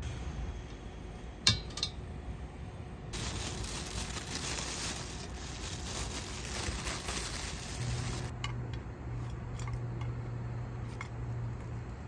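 Tableware clinking: one sharp ringing clink, then a few seconds of steady high hissing that starts and stops abruptly, then a low steady hum with a few light clicks near the end.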